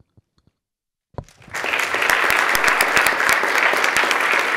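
A room full of people applauding: dense, steady clapping that starts about a second and a half in, after a moment of near silence.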